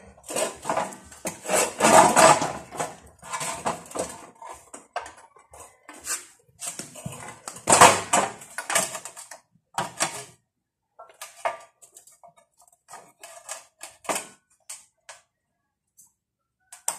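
Steel tube clanking and scraping against the metal grinder stand as it is slid into place and positioned, with irregular knocks and rattles that are busy for about ten seconds and then thin out to scattered clicks. The angle grinder is not running.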